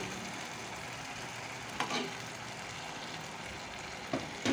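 Thickened steak sauce sizzling steadily on a hot sizzling plate, with a couple of brief taps, about two seconds in and near the end.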